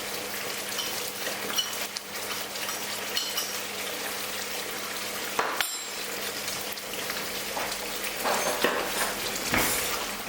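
Curry base sauce sizzling steadily in a frying pan on high heat, with salt and chilli powder just added. A couple of sharp knocks of a utensil against the pan come about halfway through and near the end.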